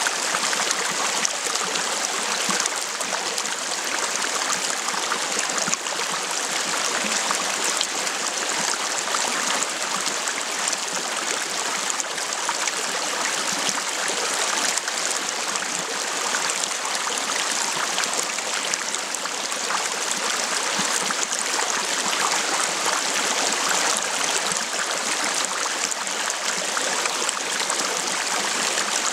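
Shallow, rocky freestone stream running steadily over and between boulders: a continuous, even wash of moving water.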